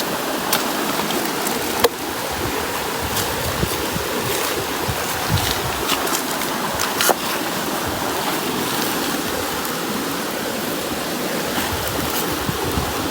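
Steady rush of river water, with scattered sharp pops and crackles from a pot of saltfish and seasoning starting to fry.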